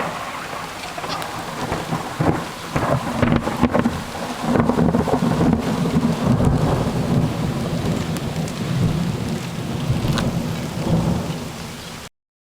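Rain falling hard with a long rolling rumble of thunder, with crackles on top; the sound cuts off suddenly just before the end.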